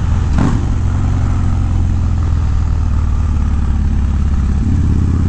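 Harley-Davidson Dyna's twin-cam V-twin running steadily at highway cruising speed through a Bassani Road Rage 3 exhaust, with wind rushing over the helmet mic. The engine note shifts near the end.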